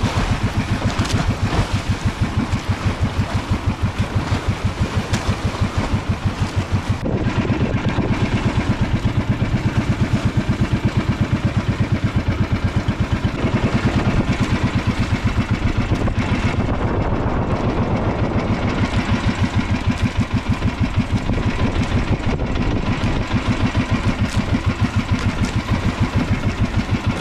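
Small outrigger boat's engine running steadily under way, with a fast, even chugging pulse, over the rush and splash of water along the hull and outriggers.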